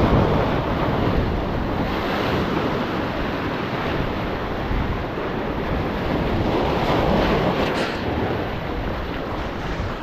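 Surf breaking and washing over the rocks at the foot of a jetty, rising and falling as each wave comes in.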